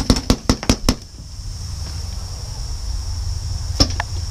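Paintball marker shots: a rapid string of about six sharp pops in the first second, then two more in quick succession near the end.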